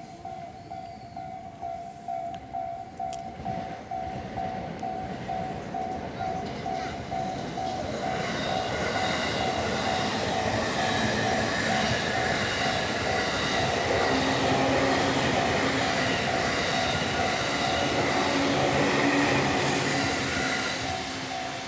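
Japanese railway level-crossing alarm ringing, a repeated electronic tone at about two to three strokes a second. From about eight seconds in, an electric commuter train (E233 series 3000 coupled with E231 series 1000) approaches and runs past the crossing, loudest in the second half and easing off near the end, with the alarm still ringing under it.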